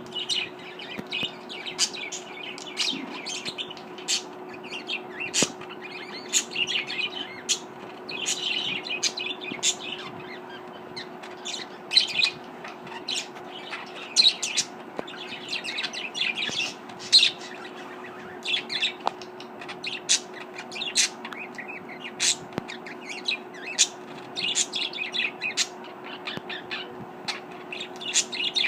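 Caged budgerigars chirping and chattering, a rapid run of short, high chirps several times a second throughout, over a steady low hum.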